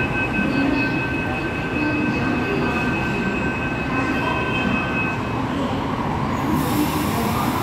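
Mumbai Metro train standing at a platform just before it departs. A steady high two-note tone sounds over a low rumble and stops about five seconds in, and a burst of hiss comes near the end.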